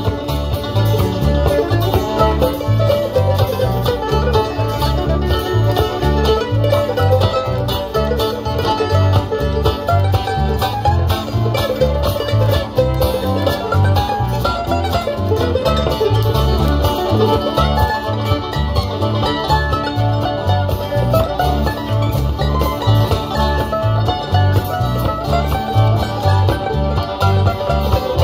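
Live bluegrass band playing an instrumental break with no singing: banjo, fiddle, mandolin and acoustic guitar over electric bass, with a steady low beat.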